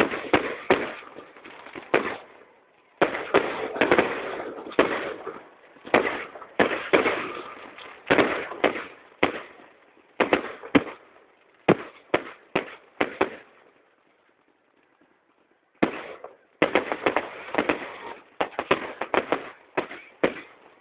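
Aerial fireworks going off in a rapid string of sharp bangs, some coming in quick clusters, with a lull of about two seconds roughly two-thirds of the way through before the bangs resume.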